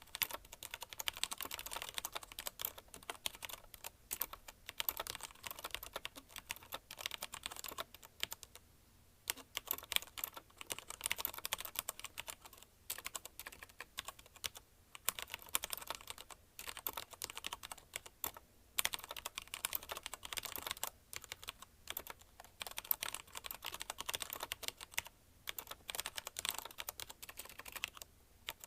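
Fast continuous typing on a mechanical keyboard with Cherry MX Red linear switches (CM Storm Quick Fire TK), a rapid stream of key clacks with a short pause about nine seconds in and a few brief gaps.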